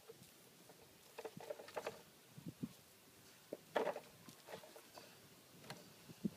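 Dogs nosing and pawing in a sandbox among plastic toys: faint, scattered scrapes, taps and rustles, with one louder short sound a little under four seconds in.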